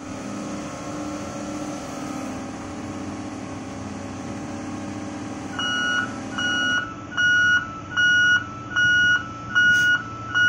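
Steady hum of heavy machinery running, then about halfway through a vehicle's reversing alarm starts beeping, a single high tone repeating a little faster than once a second. The hum dies away as the beeping goes on.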